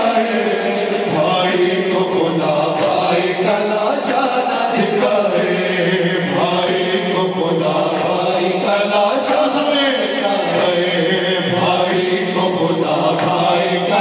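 A noha, a Shia mourning lament, chanted by male voices in a continuous melodic line.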